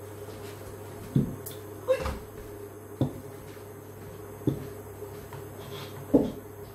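About five separate dull knocks and thumps, a second or so apart, the last the loudest, over a steady low hum.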